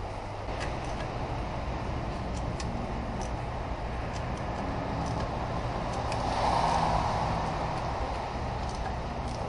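A motor vehicle running: steady engine and road-like noise with a low hum, swelling louder about six to seven seconds in.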